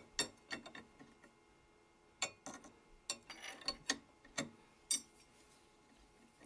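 Steel wrench clicking and clinking against the collet nut of a DeWalt 611 router as it is fitted on to tighten the collet. About a dozen sharp metallic clicks come at uneven intervals, with a brief rattle near the middle.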